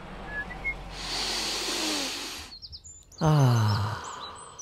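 Street ambience with birds chirping, a soft whoosh of a vehicle passing about a second in, then a loud low tone that slides down in pitch a little after three seconds.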